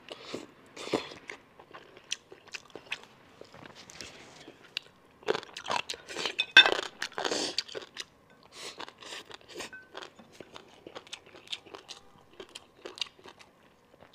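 A person chewing and biting mouthfuls of braised monkfish offal and steamed rice close to the microphone. The sound is a run of short, wet chewing clicks, loudest for a couple of seconds around the middle.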